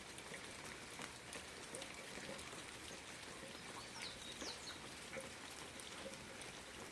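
Steady light rain falling, with scattered drops ticking. A brief high chirp comes about four seconds in.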